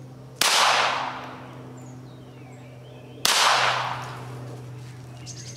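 Two shots from a .22 LR pistol firing Federal Premium Gold Medal Target rounds, about three seconds apart. Each crack trails off in a long echo.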